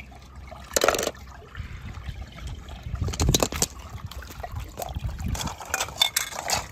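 Water sloshing and dripping as a clear plastic capsule with a toy car inside is handled wet. Irregular splashes and plastic knocks come through it, the first loud one about a second in.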